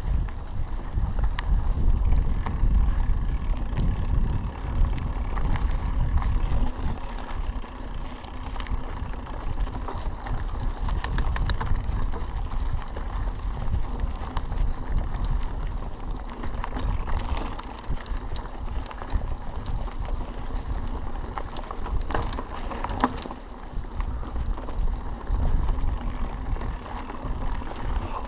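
Mountain bike riding along a dirt and gravel forest track: the tyres roll over the loose surface and the bike rattles, with an uneven low rumble of wind on the microphone. A short run of sharp clicks comes a little before the middle.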